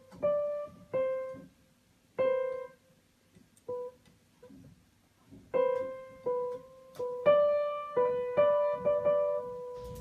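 Upright piano keys pressed one at a time by a cat's paws: single mid-range notes with pauses between them, coming faster in the second half.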